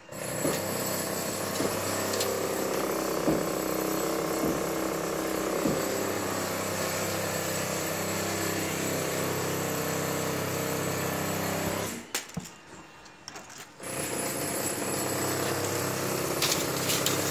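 A small engine or machine running steadily, with a few knocks over it. It drops away for about two seconds roughly twelve seconds in, then comes back.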